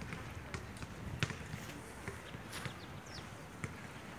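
Footsteps of someone walking: a light, irregular tapping over a low, steady background rumble.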